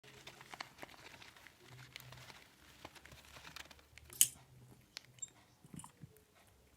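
Soft clicking and smacking sounds of a forpus parrotlet being hand-fed, with one louder, sharper noise about four seconds in.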